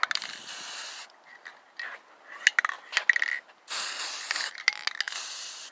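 Aerosol spray can of automotive clear coat spraying in short hissing bursts, about three of them, with metallic clicks and rattles from the can in between.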